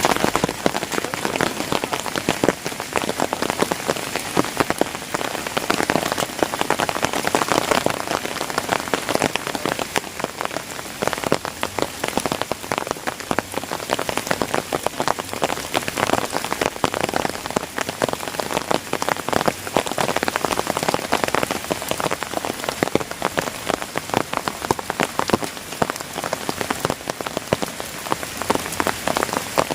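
Heavy rain falling steadily: a dense, even hiss of countless drops, with many close individual drop impacts crackling through it.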